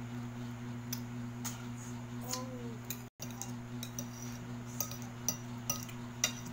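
Metal fork and spoon clinking and scraping against a glass plate while eating noodles, with several sharp clinks in the second half. A steady low hum runs underneath, and the sound drops out for an instant about halfway.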